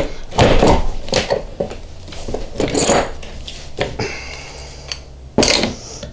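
Metal hand tools and iron pipe fittings clinking, knocking and scraping against a workbench as an air-line oiler is handled and gripped with pliers to unscrew it. The sound comes as a run of separate knocks and short scrapes.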